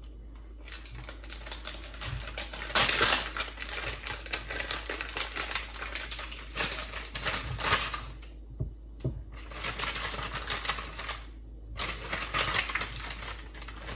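Plastic packet of frozen shredded coconut crinkling and rustling as it is handled and opened by hand, with a loud crinkle about three seconds in and a couple of short pauses.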